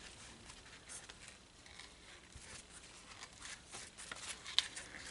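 Faint rustling and crinkling of ribbon being handled as thread is wrapped around the gathered middle of a bow, with a single sharp click a little after four and a half seconds.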